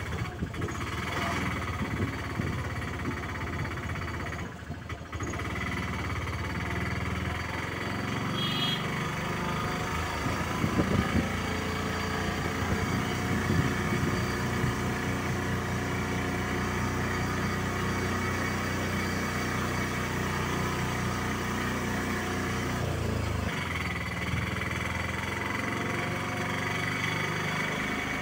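Engine of the vehicle carrying the camera running steadily as it travels along the road, with road noise; the engine note changes about 8 seconds in and again about 23 seconds in.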